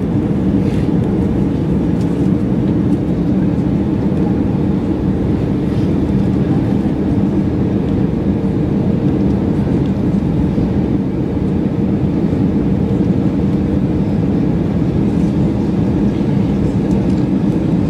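Steady cabin noise of an Airbus A320-216 descending on approach to land, heard from inside the cabin near the wing: the CFM56 turbofan engines running with the rush of airflow, an even low rumble with a faint steady hum.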